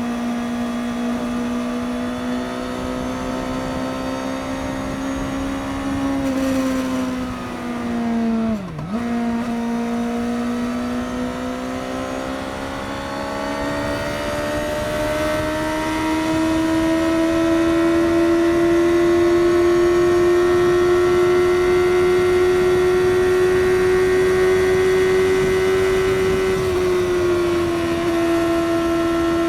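Suzuki GSX-S750's inline-four engine through its stock exhaust, running at highway speed with a steady drone. Its pitch dips sharply and recovers about nine seconds in, then climbs slowly over the next ten seconds and steps down slightly near the end.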